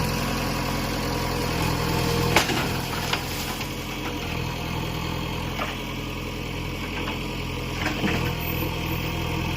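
Diesel engine of a JCB-type backhoe loader running steadily, with a few sharp knocks from the machine working, the first about two and a half seconds in and the last near the end.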